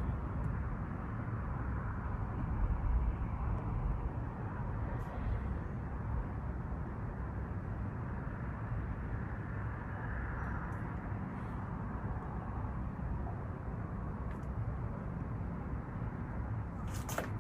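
Steady, low outdoor rumble of background noise with no distinct events.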